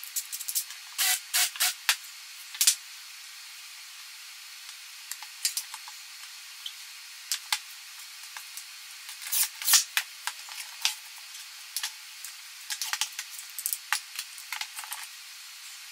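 Light, irregular clicks and knocks of hand tools, clamps and small wood blocks being handled on a plywood workbench, over a faint steady hiss.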